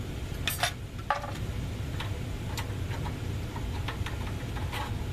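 A few scattered light clicks and taps of tools and small parts being worked loose on a tankless propane water heater, over a steady low hum.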